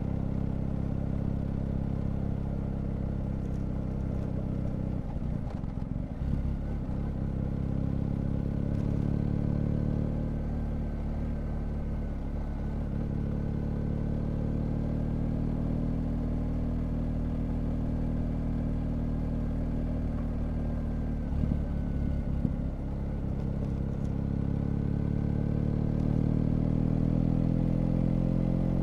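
BMW GS Adventure's boxer-twin engine running at an easy cruise during a motorcycle ride. The note is steady with a few brief dips, and it rises in pitch over the last few seconds as the bike speeds up.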